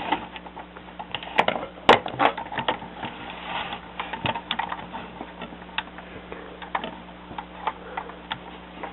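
Hard plastic LEGO pieces of a Slave I model clicking and clattering as they are handled and fitted together: irregular small clicks throughout, with a few sharper ones between one and two seconds in.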